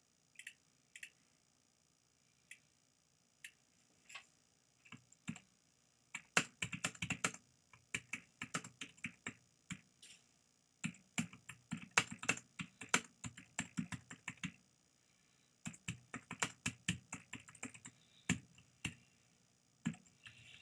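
Typing on a computer keyboard: a few scattered keystrokes, then quick runs of keys broken by short pauses.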